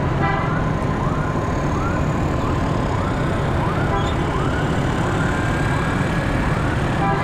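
Ambulance siren sounding a repeating rising wail, about one sweep every two-thirds of a second, over the steady hum of motorbike engines and traffic. Short horn toots come near the start and again near the end.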